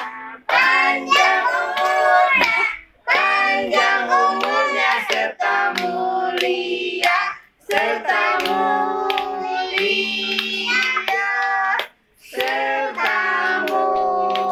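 A birthday song sung in phrases with short breaks, with hands clapping along to it.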